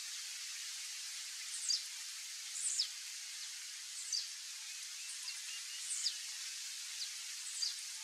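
Male blue-black grassquit singing: a short, high note sliding downward, repeated about every second and a half over a steady background hiss.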